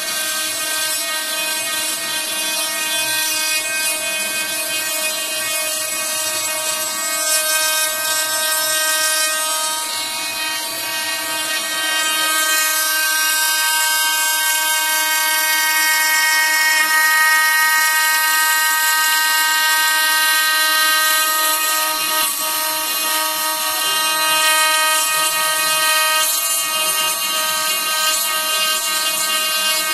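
Motors driven by a CNC motion controller running steadily: a whine of several steady tones over a hiss, with the lower hum dropping away for several seconds midway.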